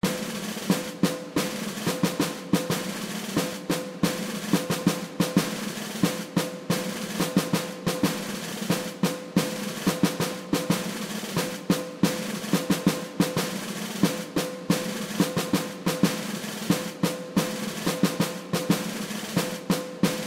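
Airliner cabin while taxiing: a steady engine hum under rapid, irregular rattling knocks, several a second.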